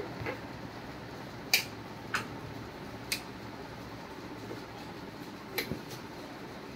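Sharp plastic clicks from hands handling the panipuri water machine's dispensing head and working its switch and knob: five clicks spread over several seconds, the last two close together, over a faint steady hiss.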